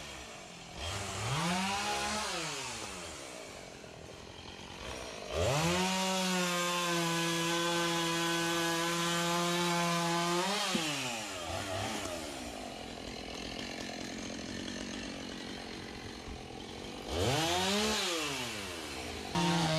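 Gas chainsaw revving: a quick rise and fall, then held at full throttle for about five seconds before dropping back to idle, then revved up and down once more near the end.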